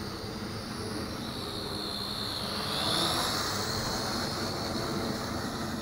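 JJRC H12C toy quadcopter's small motors and propellers whining steadily in flight. About halfway through, the whine grows louder and dips in pitch, then rises back.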